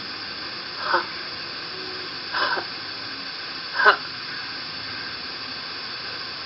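A woman's voice pronouncing short, breathy isolated English consonant sounds as a pronunciation demonstration. There are three about a second and a half apart, then one more near the end, each falling in pitch, over a steady background hiss.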